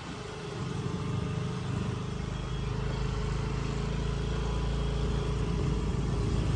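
A motor vehicle's engine running steadily with a low rumble, growing louder over the first second or two and then holding even.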